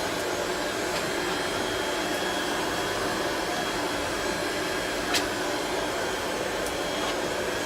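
Electric heat gun blowing steadily while it heats vinyl wallpaper, with a brief click about five seconds in.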